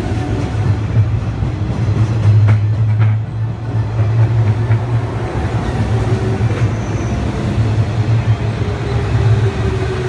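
JR 103 series electric train pulling away from the platform and running past close by: a steady low hum of motors and wheels on the rails, with a few sharp clicks about two and a half to three and a half seconds in.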